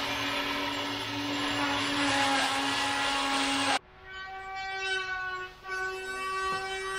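A small corded handheld power tool running and cutting into the plywood side of the wooden fuselage, a steady whine over gritty noise. It cuts off suddenly a little under four seconds in, followed by the steady, evenly pitched hum of a bandsaw running.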